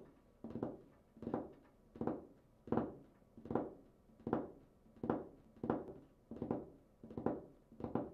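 Fingers drumming on a tabletop: a quick roll of fingertip taps repeated steadily about every three-quarters of a second.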